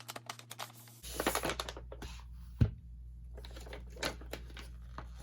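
Album packaging being opened and handled by hand: a run of light plastic crinkles, clicks and taps, with one sharp knock about halfway through.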